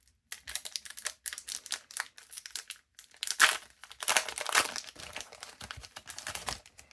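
A foil booster pack wrapper crinkling as it is handled and torn open, in a run of rapid crackles with a louder tearing stretch about three and a half seconds in.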